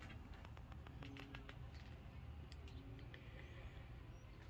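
Quiet background with a low steady rumble and a run of faint small clicks and ticks about a second in, with a few more a little later.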